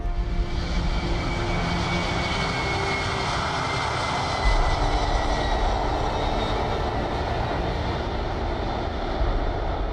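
Fixed-wing aircraft engines running loud, a steady deep rumble with a faint whine that slowly falls in pitch; the low rumble swells about four and a half seconds in.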